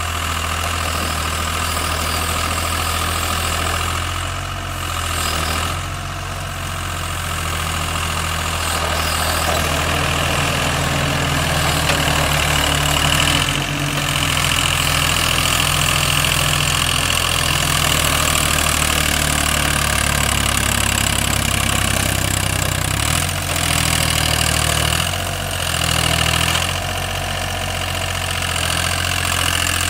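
Mini excavator's engine running steadily, getting louder for a long stretch in the middle and dipping briefly several times near the start and toward the end.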